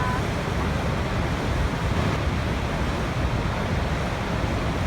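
Waterfall running steadily: a constant, even rush of falling water, heaviest in the low range.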